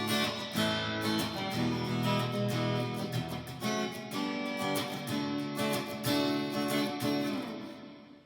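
Fender Player Stratocaster electric guitar played on its middle single-coil pickup: a run of strummed chords in a clean tone, ringing out and fading near the end.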